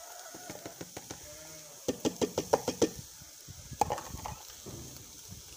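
A goat bleating: a long wavering bleat about two seconds in and a shorter one near four seconds.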